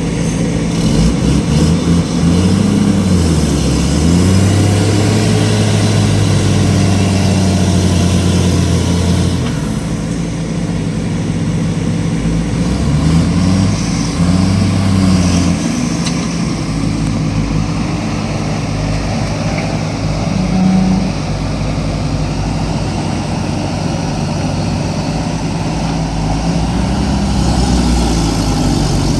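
Backhoe loader's diesel engine running as the machine works, revving up and back down several times so that its pitch rises and falls.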